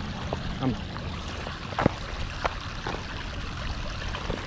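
Shallow river water splashing and trickling as a cast net is hauled back in by its hand line, with a few sharp little splashes and clicks along the way.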